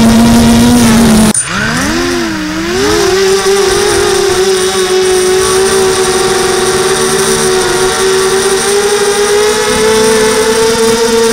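Radio-controlled model airplane's motor and propeller droning steadily. About a second in it cuts abruptly to a higher-pitched drone that wavers up and down for a couple of seconds, then holds steady and creeps slightly higher.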